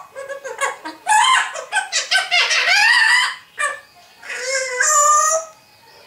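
African grey parrot calling: a string of loud, gliding squawks and whistle-like notes in several bursts, with a longer held call about five seconds in.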